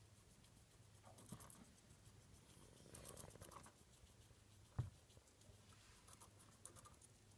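Near silence with faint, rapid scratchy ticks of a field mouse nibbling a baby carrot, and one short knock about five seconds in.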